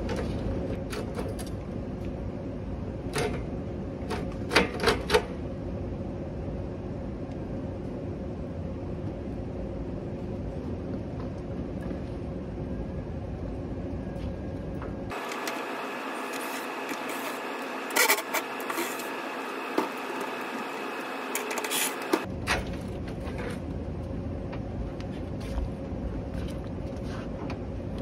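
Scattered sharp metallic clicks and knocks of hand tools and the steel enclosure as a fused electrical disconnect is unwired and taken off a rooftop HVAC unit, over a steady background rumble. A loud cluster of clicks comes about five seconds in, and more come between about eighteen and twenty-two seconds.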